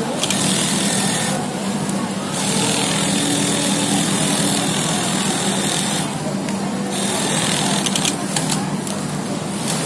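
Industrial sewing machine stitching in runs over a steady motor hum, pausing for about a second twice.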